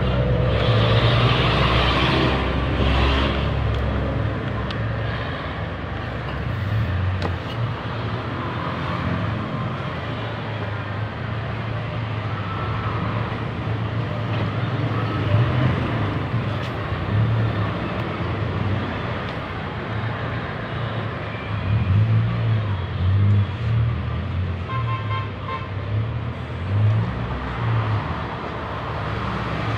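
Steady motor-vehicle and road-traffic noise, a low engine rumble that swells and fades, with a brief pitched tone like a horn about three-quarters of the way through.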